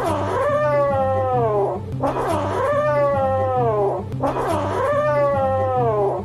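A kitten giving three long, drawn-out yowls, each sliding down in pitch.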